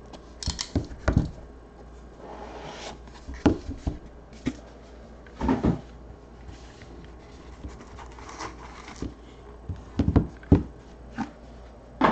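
Handling and opening a white cardboard Leaf Ultimate trading-card box: irregular light knocks, taps and clicks of cardboard and a hard card case, with short scraping rustles as the lid slides off and the cased card is lifted out.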